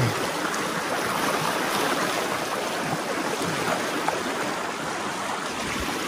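Fast, shallow mountain stream rushing over stones: a steady, even hiss of flowing water with a strong current.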